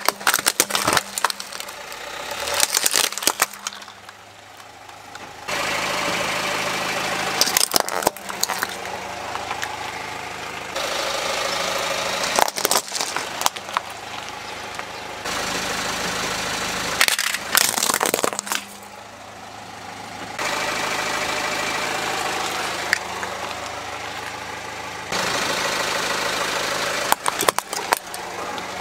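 Plastic toys, toy robots and interlocking plastic pieces, cracking and crunching under a slowly rolling car tyre in about six separate bursts. A car engine runs steadily underneath, its hum stepping abruptly up and down between the bursts.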